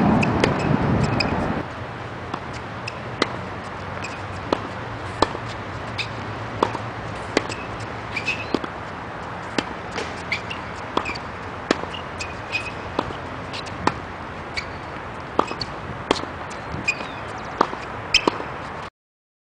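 Tennis ball struck by rackets and bouncing on a hard court during a rally: a string of sharp pops, less than a second apart. A rushing noise covers the first second or so, and the sound cuts off suddenly near the end.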